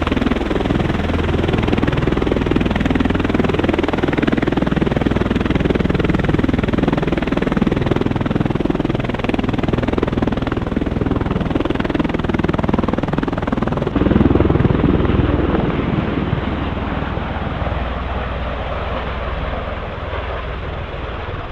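Bell Boeing V-22 Osprey tilt-rotor aircraft running, a steady low rotor and turboshaft engine noise. About two-thirds of the way through it suddenly gets louder, then fades steadily as an Osprey lifts off and climbs away.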